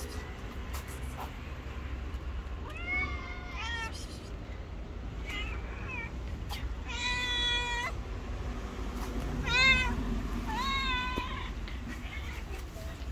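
Street cat meowing repeatedly: about six high meows a second or two apart, the longest one held steady about seven seconds in.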